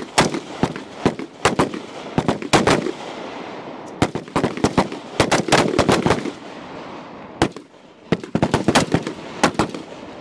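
Rifle fire on a range: many sharp shots in quick clusters and strings, some overlapping, with a short lull about two-thirds of the way through before firing picks up again.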